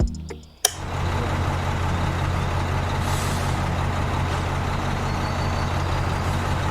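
A heavy truck engine running steadily with a low hum, cutting in abruptly after a sharp click just under a second in.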